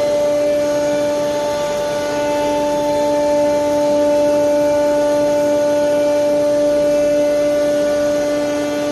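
CNC router spindles running at a constant speed while the bits carve a wooden board: a steady whine at one pitch over the hiss of cutting.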